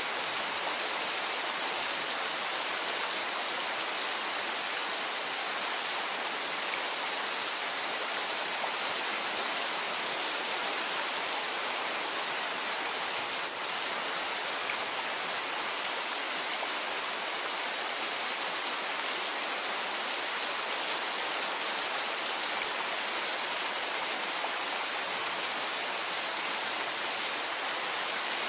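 Steady rain falling, an even hiss with no thunder, with a momentary drop in level about halfway through.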